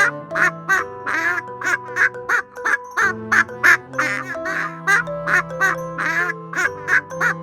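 Short animal calls repeating rapidly, about two to three a second, over background music with held notes.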